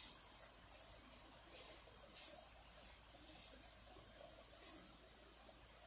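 Faint insect chorus outdoors: a steady, high, rapidly pulsing trill, with a few short hissy swishes now and then.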